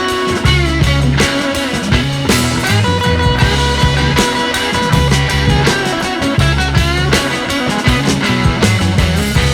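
Background rock music with electric guitar, bass and drums at a steady beat.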